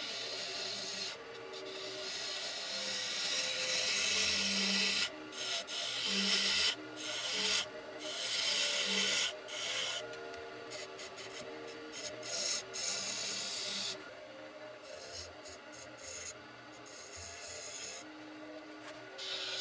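A bowl gouge cutting a spinning red oak vessel on a wood lathe: a rough scraping hiss of the cut, broken off briefly many times as the tool lifts from the wood, over a steady hum. The cutting is loudest in the first half.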